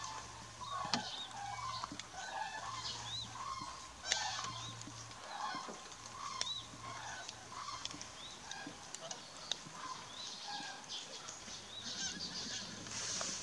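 A flock of common cranes calling: many short, overlapping honking calls, with higher thin notes mixed in.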